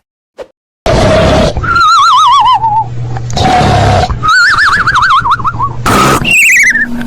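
Cartoon-style snoring sound effect, edited and pitch-altered: a rasping snore on each inhale, then a wobbling whistle on the exhale that glides down in pitch. It starts about a second in and repeats three times, the third whistle noticeably higher.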